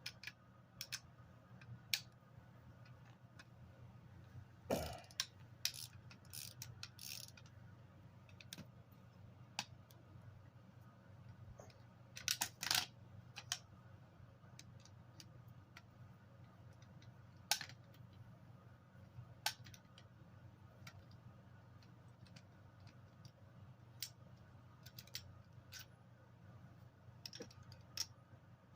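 Scattered clicks and light metallic taps of hand tools working on a washing machine motor during teardown, with a few quick knocks in a cluster about halfway through, over a low steady hum.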